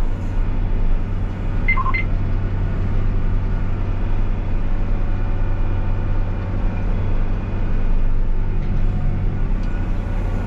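John Deere 8RX 410 tracked tractor's diesel engine running steadily under load while pulling a Farmet Kompaktor seedbed cultivator across the field. About two seconds in there are two short electronic beeps.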